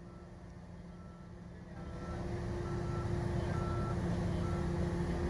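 Heavy-equipment diesel engine running and revving up about two seconds in, with a high warning beeper sounding short beeps at uneven intervals.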